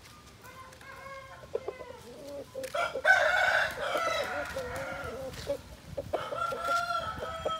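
Aseel roosters crowing: one long crow about three seconds in and another starting near the end, with fainter calls before them.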